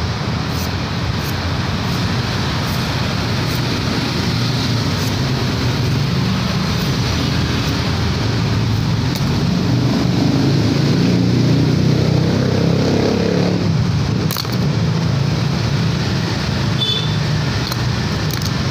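Steady road traffic noise. A motor vehicle passes close by, growing louder to a peak around twelve seconds in and falling away at about fourteen seconds.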